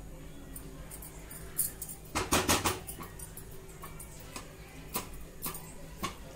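A silicone spatula stirring thick chicken curry in a metal kadai, with soft scrapes and clicks. A short, loud burst of knocks and scraping comes a little over two seconds in, over a low steady hum.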